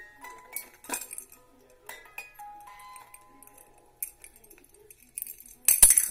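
Ballerina music box playing a slow tinkling tune of single high plinked notes, over small clicks and clinks of trinkets being handled. Near the end comes a loud rustle and clatter, the loudest sound.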